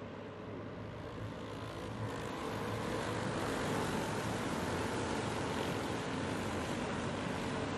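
A pack of dirt-track racing karts running together, their small engines making a dense buzz that grows louder about two seconds in as the field comes past.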